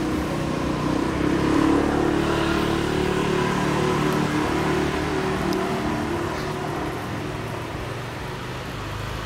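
An engine running steadily close by, a low hum with a steady pitch that swells about two seconds in and slowly eases off.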